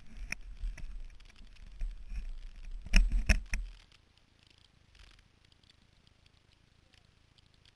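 Low rumbling and a few sharp knocks from a dirt-bike-mounted camera being jostled, the loudest cluster about three seconds in, with no engine running. Then near silence.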